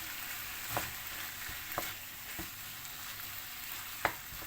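Chicken breast pieces frying in a pan with a steady sizzle, stirred, with a few sharp clicks of the utensil against the pan.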